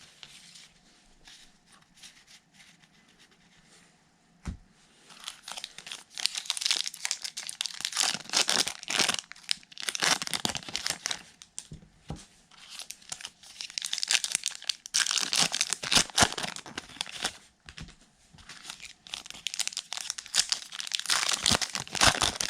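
Plastic wrappers of baseball card packs crinkling and tearing as they are ripped open and handled. After a quiet start, the crackling comes in three long spells, beginning about five, thirteen and twenty seconds in.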